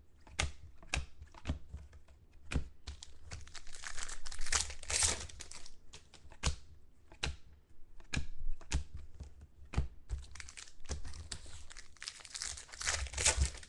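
2013 Topps Finest chrome football cards being flipped through by hand: a string of sharp clicks and snaps as each stiff card is slid off the stack. Stretches of crinkling plastic pack wrapper come in between, the longest near the end.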